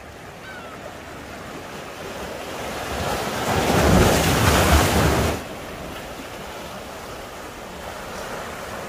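Sea waves breaking and washing against the concrete tetrapods of a breakwater. One surge builds for a couple of seconds to a loud wash about four seconds in, then cuts off suddenly, leaving a steady lower surf and wind.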